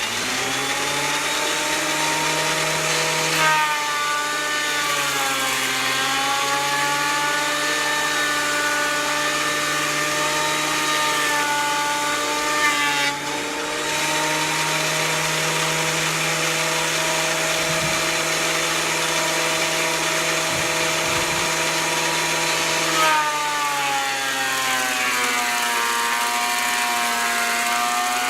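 Delta 22-540 portable thickness planer starting up and running with a high motor whine, planing rough-cut ash boards. Twice, a few seconds in and again near the end, the whine drops in pitch as a board feeds into the cutterhead and loads the motor.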